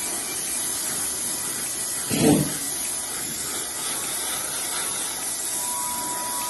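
Handheld electric Wagner paint sprayer running and spraying paint, a steady hiss throughout. A brief louder low rumble comes about two seconds in.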